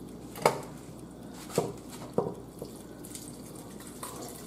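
Cookware being handled on the stove: about four sharp metal clanks as a pan of meat sauce is lifted and brought against a stockpot. Near the end, thick sauce slides softly into the pot.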